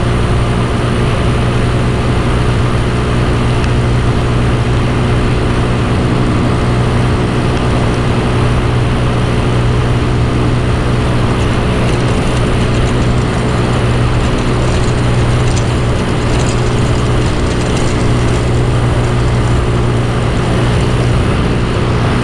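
Off-road go-kart engine running steadily as the kart drives along a dirt road, heard from on board. The pitch holds even, with no revving up or down.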